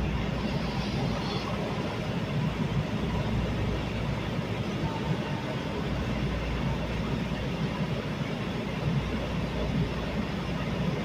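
Light-rail train running at speed, heard from inside the passenger car: a steady, even rumble.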